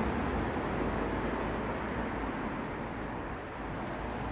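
Steady road traffic noise, an even rumble and hiss with no distinct events.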